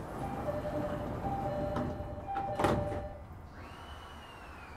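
Door-closing chime of a JR East 209-500 series train: a two-note ding-dong sounds three times, and the sliding doors shut with a knock about two and a half seconds in. About a second later a high electric whine from the traction inverter starts and begins to fall in pitch as the train starts moving.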